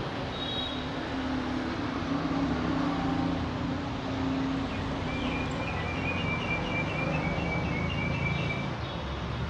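Steady background hum and rumble, with a run of short high-pitched tones repeating from about five seconds in until near the end.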